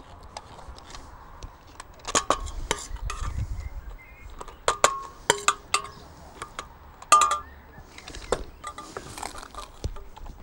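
Several sharp clinks and knocks at irregular intervals, some ringing briefly, as a slotted spoon and a plastic potato ricer strike a stainless steel pot and bowl while boiled potatoes are scooped up and pressed through the ricer.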